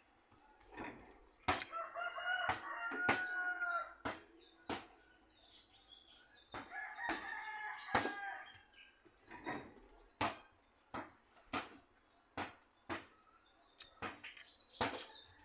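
A rooster crowing twice, each crow about two and a half seconds long, with short sharp clicks repeating throughout.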